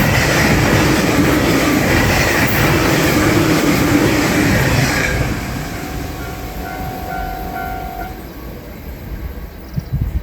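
Electric train passing over a level crossing: loud for about five seconds, then fading as it goes away. The crossing's warning bell goes on ringing with a short repeating tone, then stops about eight seconds in as the crossing clears.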